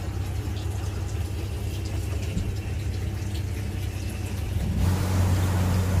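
Fishing boat's engine running with a steady low hum. About five seconds in it is suddenly louder, with the rush of water along the hull as the boat runs under way.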